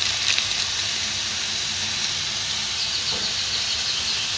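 Chopped vegetables sizzling steadily in hot oil in a steel kadai.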